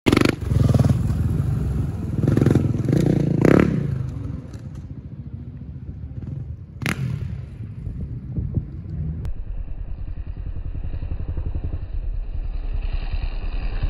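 Dirt bike engine revving in several loud bursts over the first few seconds, with a single sharp rev about halfway through, then running at low revs with a steady pulse as the bike comes closer.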